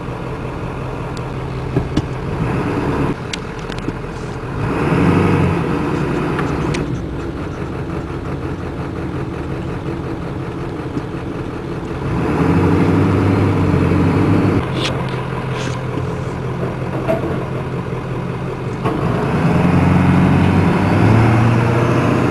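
Heavy construction machine's engine running steadily, swelling louder several times as it works: around five seconds in, for a few seconds about halfway through, and again near the end.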